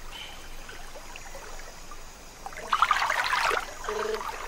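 Water splashing and sloshing as a giant otter swims at the surface, starting about two and a half seconds in after a faint quiet stretch.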